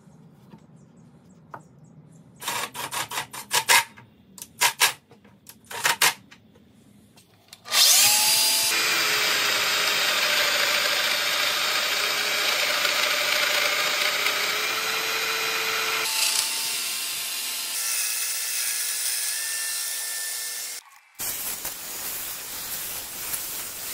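A run of knocks and clatter, then a Festool Domino XL DF 700 joiner runs loud and steady, plunging mortises into the edge of a solid birch board. Its sound shifts about halfway through, stops for a moment near the end and starts again.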